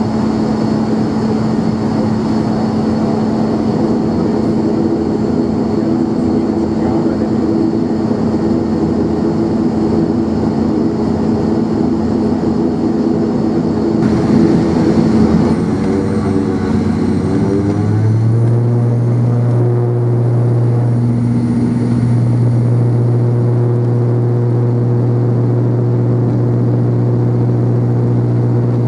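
ATR 42-500's Pratt & Whitney PW127 turboprop and six-blade propeller, heard from inside the cabin. The engine runs steadily at first, surges about halfway through with its pitch wavering for a few seconds as power comes up for takeoff, then settles into a steady deep propeller drone.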